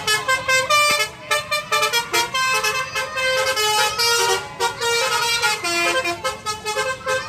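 A bus's Basuri telolet horn plays a fast tune of short stepped notes.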